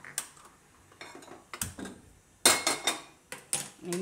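Sharp metal clicks and clanks from a hand spark lighter and a stainless steel kadhai on a gas stove as the burner is lit, the loudest a ringing metal clank about two and a half seconds in.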